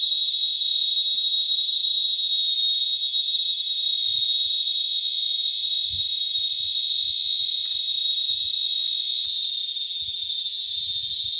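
A chorus of many small cicadas, the 'cigarrito' of northeastern Brazil, singing together: one continuous shrill, high-pitched drone that holds steady throughout. Its song is thinner than the larger cicada's and loud enough to hurt the ears.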